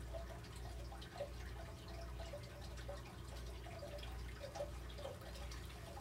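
Water dripping in small irregular drops, several a second, over a steady low hum.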